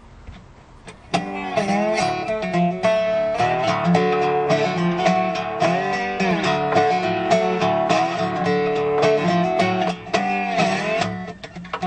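Gretsch resonator guitar played solo as an instrumental intro, starting about a second in: a busy run of picked notes, several of them bent in pitch.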